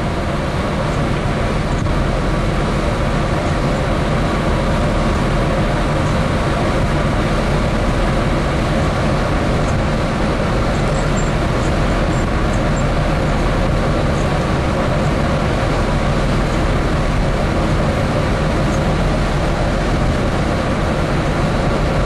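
Steady, loud drone of a dredge's engines and machinery, mixed with the rush of its churning wake water.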